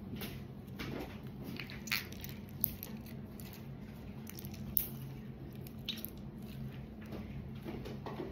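Homemade glue slime being squished and kneaded by hand: a string of short, wet squelches and clicks at irregular moments.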